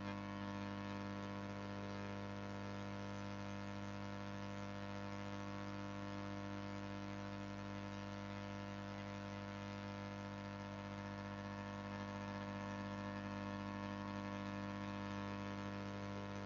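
Steady low electrical hum with a stack of fixed tones over a faint hiss, unchanging throughout: background noise of the recording setup, with no other sound.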